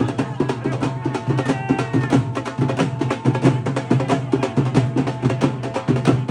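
Fast, busy drumming with many strokes a second over a steady low drone.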